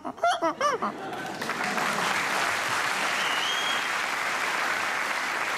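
Studio audience applauding. The applause starts about a second in, just after a man's last words, and then holds steady.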